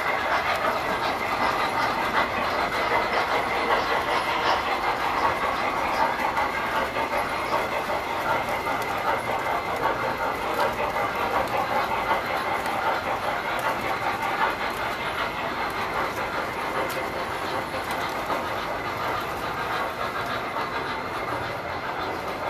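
Tinplate model trains running on the layout's track: a steady rattle of wheels on rail that slowly grows a little quieter.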